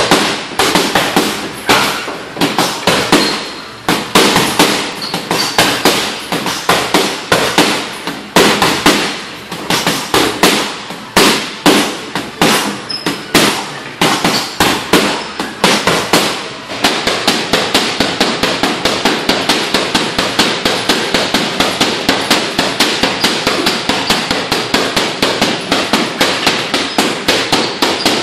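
Rapid punches landing on a hanging heavy bag: loud slaps and thuds in quick clusters with short pauses, then about 17 seconds in a fast, even, unbroken flurry of strikes.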